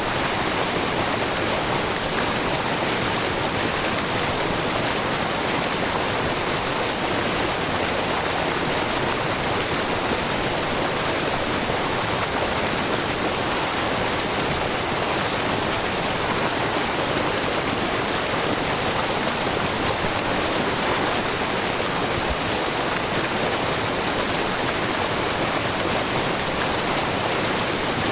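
Shiraito Falls, a low, wide waterfall of many thin streams of spring water falling over rock, rushing steadily without change.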